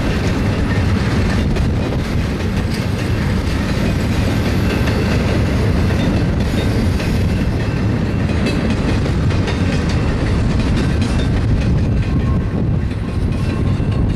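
BNSF double-stack container train's cars rolling past, a steady loud rumble of steel wheels on the rails.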